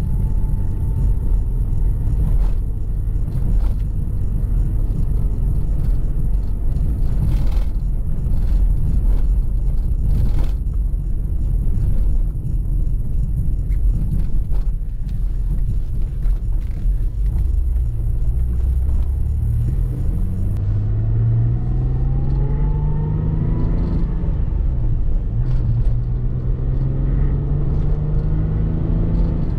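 Cabin sound of a 1989 Citroën XM: a steady low rumble of engine and road for most of the time. From about two-thirds of the way in, the engine pulls hard in acceleration, its note rising, dropping at a gear change, then rising again.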